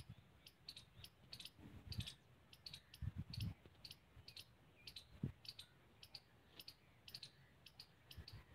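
Faint, irregular high clicks throughout, with a few soft low thumps about two, three and five seconds in.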